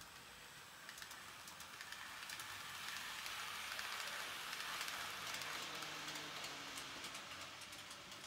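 N gauge model train running past on the track: a steady rushing of wheels and motor that grows to its loudest around the middle and eases off as it moves away, with light clicking from the track.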